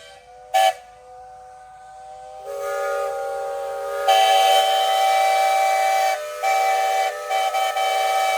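Several steam whistles blowing at once, their steady tones of different pitches layered together. There is a short toot just after the start, more whistles join about two and a half seconds in, and a louder one comes in about four seconds in and breaks off briefly a few times.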